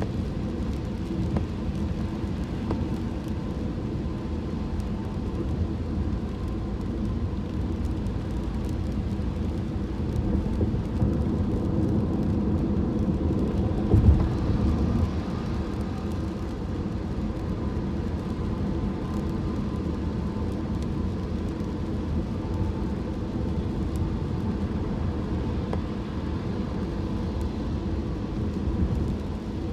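Steady in-cabin road noise of a car driving on a wet freeway: a low rumble from the engine and from tyres on wet pavement, with a single short thump about halfway through.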